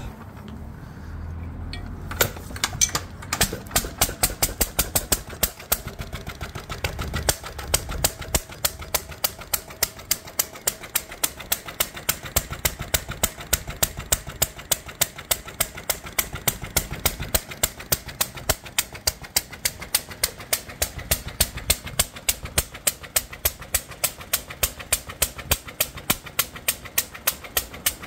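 1946 International Harvester LB 1½ hp single-cylinder, water-hopper-cooled stationary engine starting about two seconds in, then running with sharp exhaust beats, several a second, uneven at first and soon steady. It runs on a substitute Ford Model A spark plug, which cured its failure to start.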